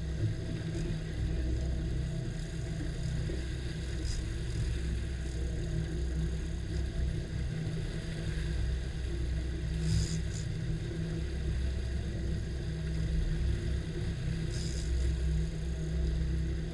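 Twin Suzuki 200 four-stroke outboard motors running at low speed, a steady low rumble, with a few short clicks about four, ten and fifteen seconds in.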